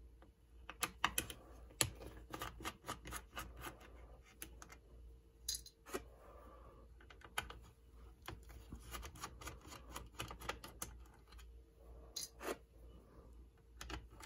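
Faint, irregular clicks and taps of the Electra TC-505 reel-to-reel tape recorder's case parts and screws being handled and fitted as the recorder is put back together.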